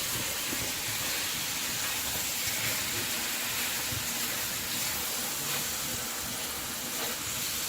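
Ginger chicken frying in hot oil in a pan, a steady sizzling hiss.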